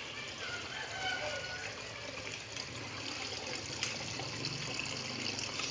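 Water trickling and running steadily, with faint voices in the background.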